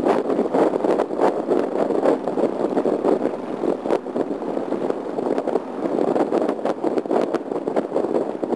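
Harley-Davidson Sportster 1200 Custom riding at road speed. Wind rush and buffeting on the microphone, uneven and gusty, over the steady drone of the V-twin engine.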